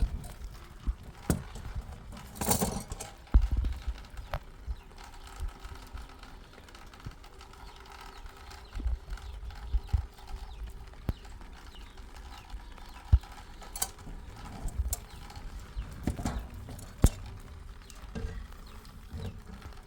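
Scattered, irregular knocks and clatters over a low background rumble, with a louder scraping burst about two and a half seconds in.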